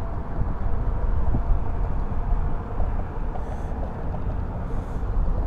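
Steady low rumble of road traffic on the bridge.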